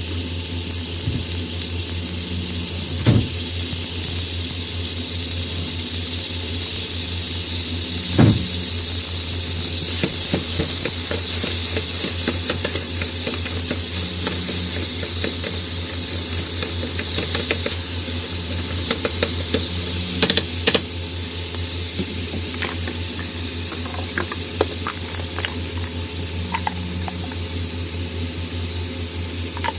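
Ground beef sizzling in hot oil in a ceramic-coated frying pan, the sizzle building over the first several seconds. A spatula knocks and scrapes against the pan now and then as the meat is broken up, with the sharpest knocks near the start and a cluster about two-thirds of the way through.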